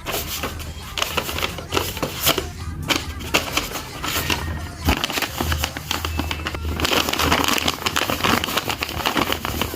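Paper crinkling and crackling in hands, a dense run of irregular rustles and small crackles that gets busier in the second half.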